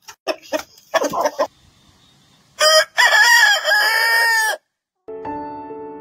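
Rooster crowing once, about two seconds long, after a few short clucks. Soft piano music starts just before the end.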